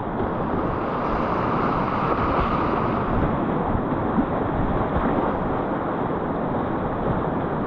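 Steady rushing of whitewater on the Afon Mawddach, a continuous noise of the river running through rapids at a medium-high level.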